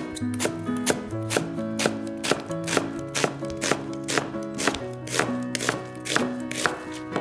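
Chef's knife slicing an onion thinly, the blade knocking on a cutting board in an even rhythm of a little more than two cuts a second, over soft background music.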